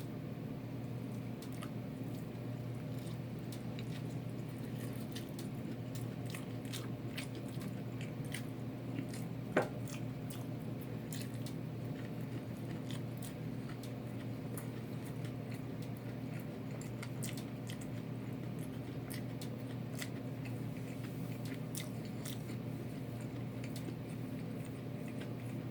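A person chewing and biting fried chicken close to the microphone, with many small wet mouth clicks and crunches over a steady low hum. One sharper click comes about ten seconds in.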